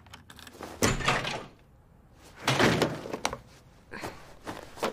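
A door being unlocked and pushed open, with two loud bumps about a second and a half apart, then a few light knocks.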